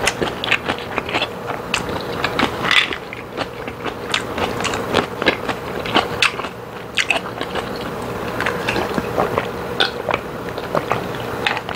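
Close-up chewing of chewy boneless chicken feet in spicy sauce: a steady run of wet clicks and smacks. About halfway through come drinking sounds from a glass of iced drink.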